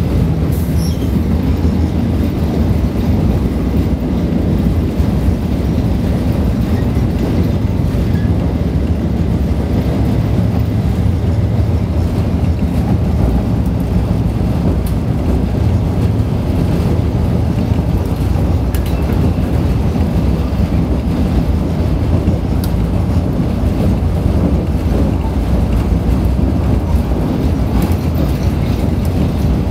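Passenger train running at speed, heard from inside the carriage: a steady low rumble of wheels on the rails and running noise.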